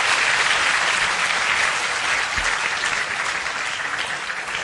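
Audience applauding, steady at first and slowly dying down toward the end.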